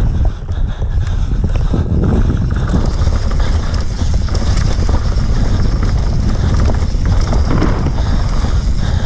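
Wind buffeting a rider-mounted camera microphone, mixed with constant rattling and knocks from a mountain bike running fast over a rough trail.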